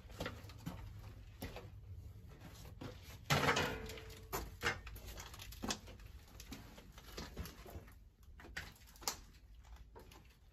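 Footsteps and scuffing in a narrow enclosed passage: irregular soft knocks and shuffles, with one louder scrape or rustle about three seconds in.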